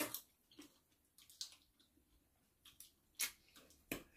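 Quiet mouth sounds of eating by hand: a scattered series of short, wet smacks and clicks from chewing and sucking curry off the fingers.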